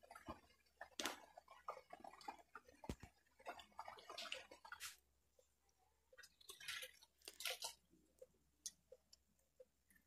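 Faint, scattered clicks, knocks and soft wet sounds of a kadai of chicken curry being lifted off the stove and tipped into a steel bowl.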